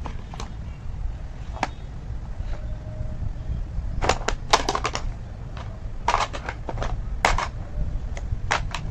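Plastic toy construction-vehicle parts clicking and clattering as they are handled, in quick clusters of clacks partway through and near the end, over a steady low rumble.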